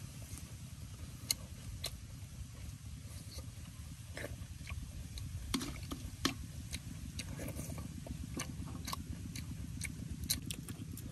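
A person eating from a metal wok with a metal spoon: scattered sharp clicks and smacks of chewing and the spoon touching the pan, a few louder ones around the middle, over a steady low rumble.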